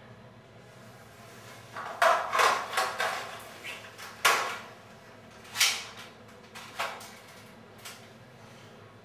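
A series of irregular knocks and clatters, loudest about two seconds in and again at about four and five and a half seconds, over a faint steady hum.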